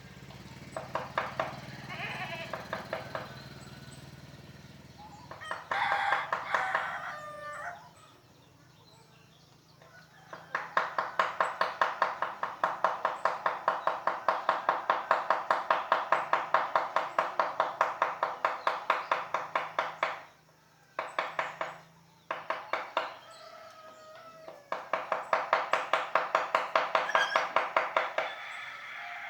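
Chisel being tapped with a mallet to carve teak wood: quick, even strikes at about four a second, in runs of several seconds with short pauses between. A rooster crows in the background a few times, most clearly about six seconds in.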